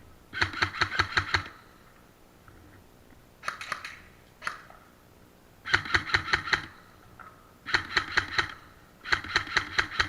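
Airsoft electric gun firing in short full-auto bursts, about eight shots a second. There are five or six bursts of roughly half a second to a second each, separated by pauses.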